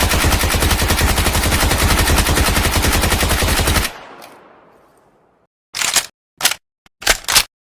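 PP-19 Bizon submachine gun sound effect firing a long full-auto burst that stops about four seconds in and rings out, followed by several short sharp clacks near the end.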